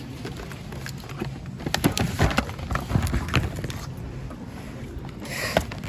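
Items being packed into a shopping bag: rustling with a cluster of knocks and clatters between about two and three and a half seconds in.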